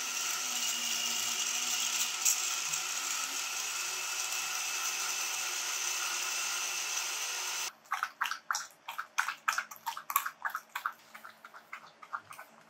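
Stand blender running steadily, cutting off abruptly about eight seconds in. After it, a Samoyed and a golden retriever lap and lick from glass bowls in quick, irregular wet clicks.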